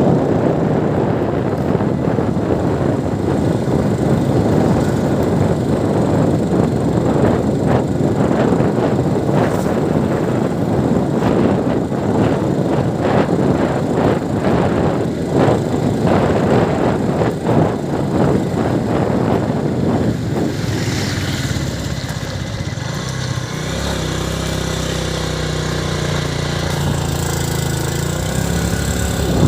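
A motor vehicle running, with heavy road and buffeting noise for most of the clip; about two-thirds of the way in it settles into a steadier engine hum.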